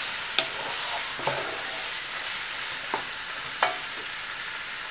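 Chicken pieces sizzling in hot oil and garlic in a nonstick pan, a steady frying hiss. A spatula stirring them gives about four short clicks and scrapes.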